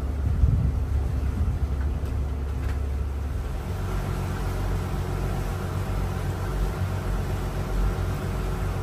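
Fleming motor yacht's engines running steadily under way, heard from inside the pilothouse as a low, even hum. Its tone changes about three and a half seconds in.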